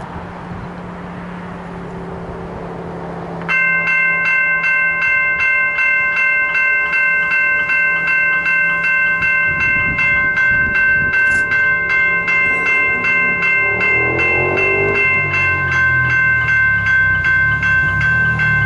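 Level crossing warning bell starting up about three and a half seconds in and ringing continuously with rapid, evenly repeated strikes over a steady ringing tone, the crossing's warning as the boom gates come down. A low rumble joins it in the last few seconds.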